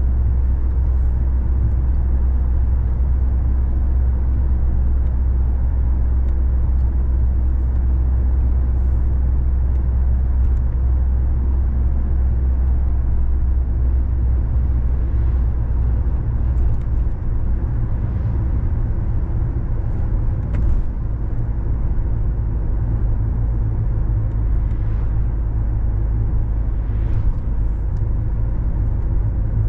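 Steady low rumble of a moving car's engine and tyres, heard from inside the car, with a few faint brief sounds over it.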